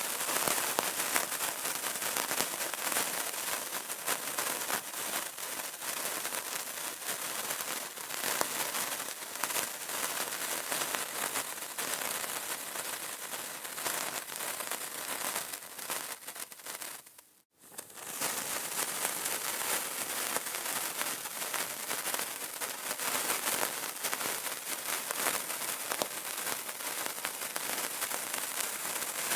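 Burning candle crackling steadily, a dense run of tiny pops and snaps. The crackling cuts out for a split second a little past halfway, then carries on.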